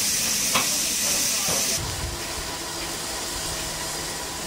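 Steady loud hiss of escaping steam from a standing LMS Stanier Class 5 'Black Five' steam locomotive, with a couple of sharp metallic clanks. About two seconds in the sound changes suddenly to a softer steam hiss with a low rumble from a second steam locomotive.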